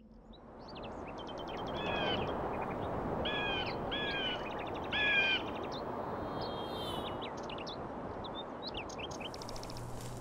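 Birds calling over a steady background hiss that fades in at the start. One bird gives four loud, harsh arched calls about two to five seconds in, among quick chirps and trills of smaller birds.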